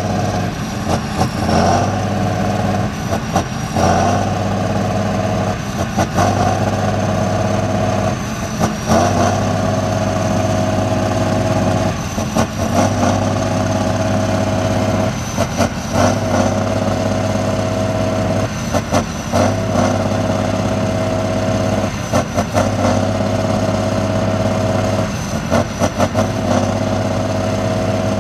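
Diesel engine of a six-wheel-drive Tatra trial truck working under load in a deep mud hole. It holds a steady note, broken by a brief dip every few seconds.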